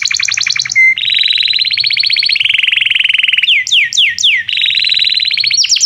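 Domestic canary singing a continuous song of rapid trills, switching every second or so to a new repeated note, with about four falling sweeps near the middle.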